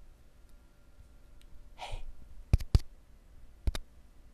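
Close-miked breathing and clicks: one soft breathy exhale about two seconds in, then two sharp clicks in quick succession, and another pair near the end.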